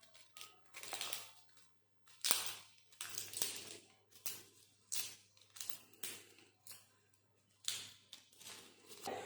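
Dried bay leaves being snapped and crumbled by hand into small pieces: crisp, irregular crackling snaps, about one or two a second.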